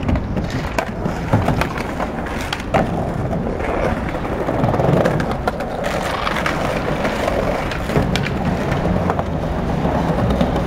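Skateboard wheels rolling over stone paving, with sharp clacks of the board now and then over a steady low rumble.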